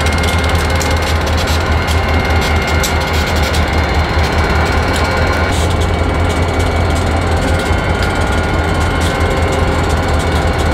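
Diesel freight locomotive engines running, a steady low rumble with a few faint steady tones above it and scattered clicks.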